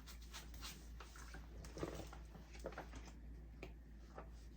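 Faint, intermittent rubbing and soft scrapes as old lace glue is scrubbed off a wig, with a few light handling taps.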